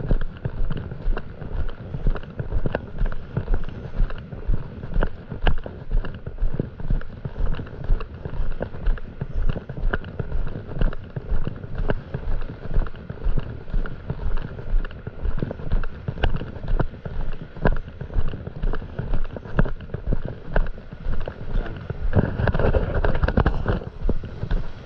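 Footsteps walking steadily across wet sand, about two steps a second, each step a dull thump, with wind noise on the microphone. About 22 seconds in, a louder rush of noise lasts a couple of seconds.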